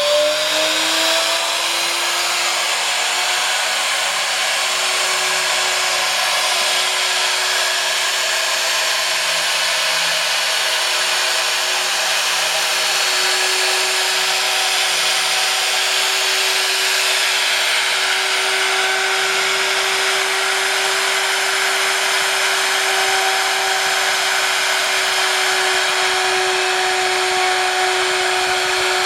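Spindle of a DIY CNC PCB drill running at high speed with a steady whine and a hiss. Its pitch finishes rising and levels off in the first couple of seconds, after spinning up.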